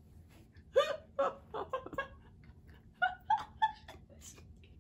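Two women laughing hard together in short, high bursts, one run of them about a second in and another about three seconds in.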